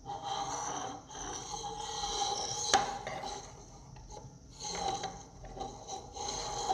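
Plastic Lego model sliding over a wooden tabletop, a rasping rub in three long strokes, with one sharp click a little under three seconds in.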